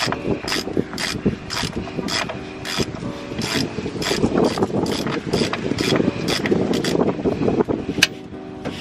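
Ratchet wrench clicking in a steady rhythm, about three clicks a second, as the oil drain plug is loosened. There is one sharper click near the end.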